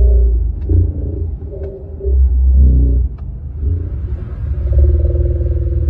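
Deep, rumbling, warbling noise broadcast over radios: human speech slowed down far below normal speed, so the voices turn into low, drawn-out growls coming in irregular stretches about a second long.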